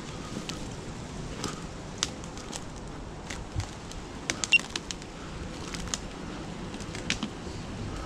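Footsteps through woodland undergrowth, dry twigs and dead stems snapping and crackling underfoot in irregular small clicks.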